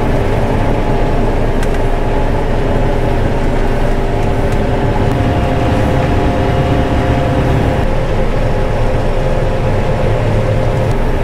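John Deere combine running steadily while harvesting, its engine and threshing machinery making a constant low drone with a steady hum over it.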